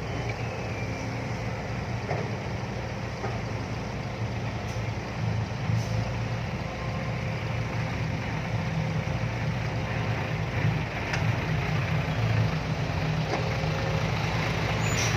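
Diesel truck engine running steadily at low revs.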